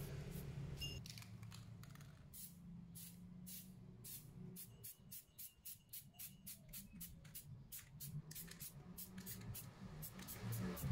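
Aerosol spray paint can (Shogun gold) hissing in quick short bursts, about three a second, starting about two seconds in.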